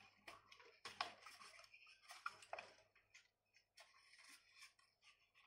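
Faint clicks and rubbing of a plastic mech action figure's stiff jointed limbs being moved and folded by hand, with a few sharper clicks about one and two seconds in.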